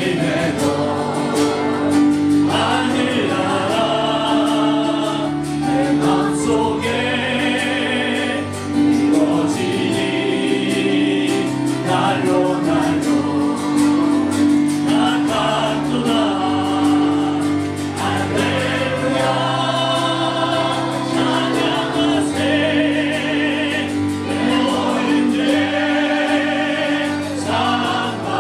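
Small mixed group of women's and a man's voices singing a Korean gospel hymn together into microphones, over sustained low instrumental notes.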